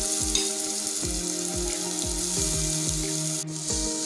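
Chopped onions sizzling in hot coconut oil in a nonstick pot as they go in and are stirred, over background music with a steady beat. The sound drops out briefly about three and a half seconds in.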